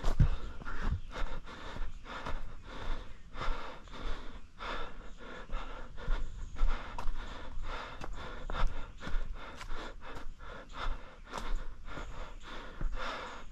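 A runner's heavy, hard breathing, panting in and out over and over, with the thud of footfalls on a rocky trail.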